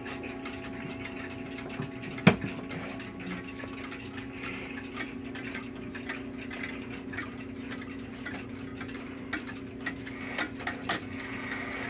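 1930s Junghans pendulum wall clock ticking steadily over a low steady hum, with one sharp click a little over two seconds in and a few louder clicks near the end as the minute hand is pushed toward the half hour.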